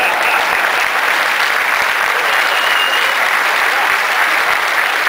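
Audience applauding, steady and dense.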